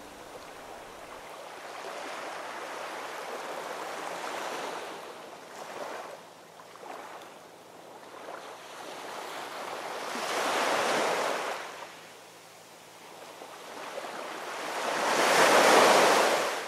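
Sea surf: waves breaking and washing up the beach, rising and falling in slow surges, the loudest near the end.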